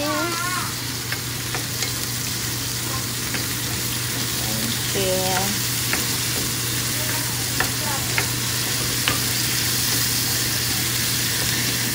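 Kimchi sizzling in a nonstick frying pan as it is stirred with a wooden spoon, with light clicks of the spoon against the pan now and then.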